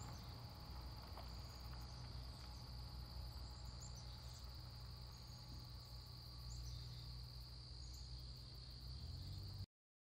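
Faint nature ambience: a steady high insect drone with a few short high chirps over a low rumble. It cuts off abruptly near the end.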